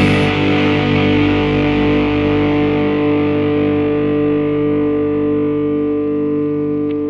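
Rock song ending on a distorted electric guitar chord left ringing and slowly fading. The high cymbal wash cuts off about a third of a second in.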